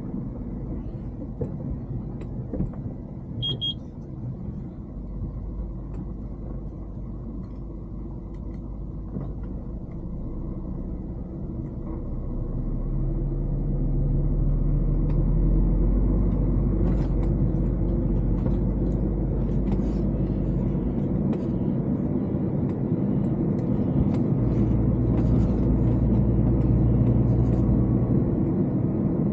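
Heavy diesel engine running steadily, getting louder and working harder from about halfway through as the grounded truck is towed by a bulldozer. A short high beep sounds once early on.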